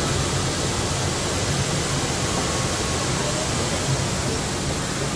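Steady, loud rushing noise from a parked Airbus airliner at the gate, with a low hum underneath.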